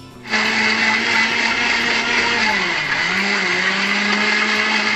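Electric mixer grinder running at speed, its motor grinding frozen jamun and banana pieces into a thick paste. It starts just after the opening with a steady whine; a little past the middle the pitch sags briefly under the load, then steadies again.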